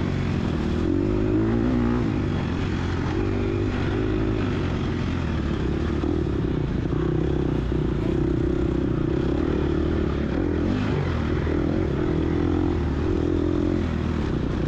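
Gas Gas EX250F dirt bike's 250 cc single-cylinder four-stroke engine running under way on a trail, its revs rising and falling with the throttle.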